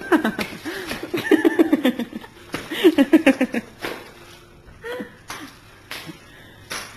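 People laughing and giggling in a small room, the laughter dying down after about three and a half seconds, followed by a few light knocks.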